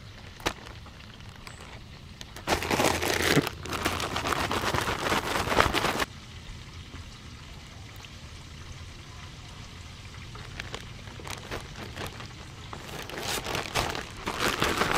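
Frog legs being shaken in a plastic zip-top bag of seasoned batter mix: a dense rustling rattle of plastic and powder for about three and a half seconds, then quiet handling, with the rustling starting again near the end.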